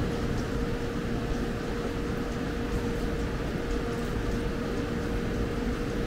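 Steady mechanical hum with a low rumble in a subway station, two level tones running over an even noise with a few faint ticks.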